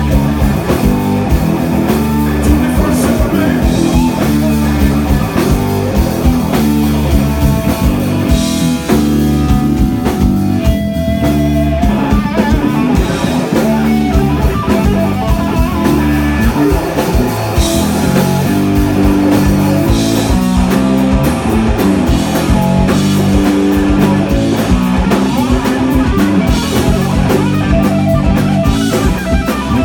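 Live blues-rock band playing loudly: electric guitar over electric bass and a drum kit.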